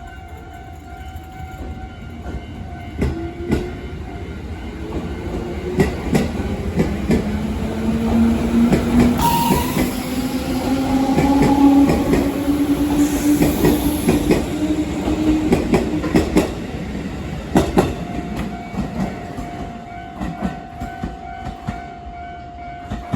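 A 211 series electric multiple unit departing, its motor and gear whine rising slowly in pitch as it gathers speed, with wheels clacking over rail joints and brief hisses midway. The uploader hears an abnormal noise from this train as it leaves.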